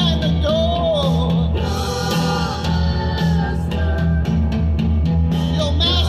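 Live band music: a man singing over acoustic guitar and electric bass.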